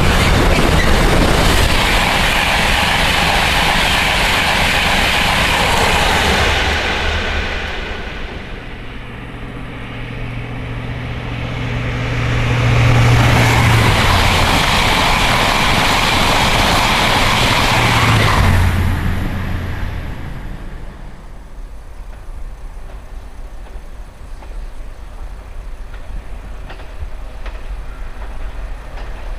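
A long container freight train rolls past and fades away about seven seconds in. Then an electric express passenger train rushes past at speed with a steady low hum and is gone about nineteen seconds in. A faint rumble from a diesel-hauled freight approaching in the distance follows.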